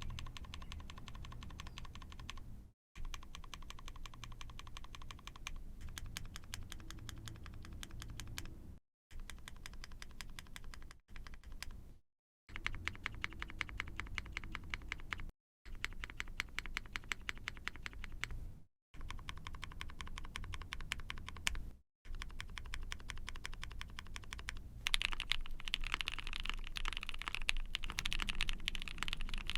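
Typing on an Ai03 Vega mechanical keyboard with a POM plate, GMK keycaps and factory-lubed Tofu all-nylon linear switches with long-pole stems, as a run of quick key clacks. The typing comes in short clips cut hard one after another, and the last few seconds are louder and brighter.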